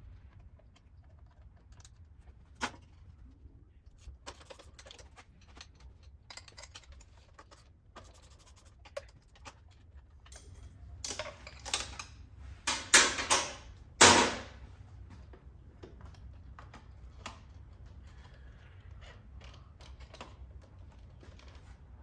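Small hard parts being handled: scattered light clicks and knocks, with a louder run of clatter and rattling about eleven to fourteen seconds in.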